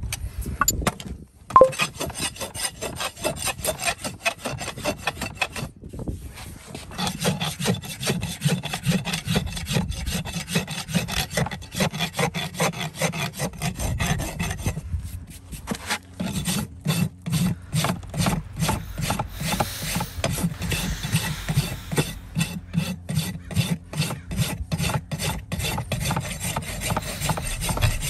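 A farrier's hoof rasp filing a horse's hoof wall in rapid back-and-forth strokes, with short pauses between runs. About a second and a half in, before the rasping starts, there is a single sharp click.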